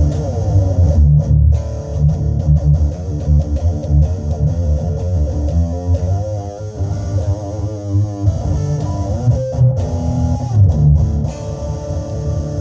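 Electric guitar played through an MXR EVH 5150 Overdrive pedal: a heavy low riff, with wavering, bent notes about halfway through.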